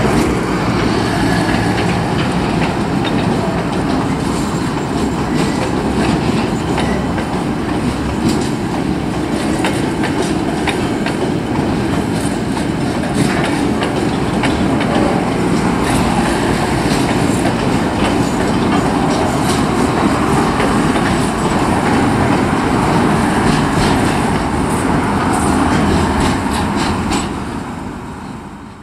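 Container freight train's wagons, many of them empty flat wagons, rolling past over a level crossing: a steady rumble with the wheels clacking over the rails. The sound fades away near the end as the last wagon goes by.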